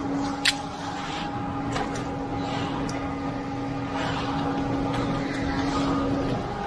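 A truck's diesel engine running steadily at one constant pitch, with a single sharp clack about half a second in and occasional scraping of hand tools on wet concrete.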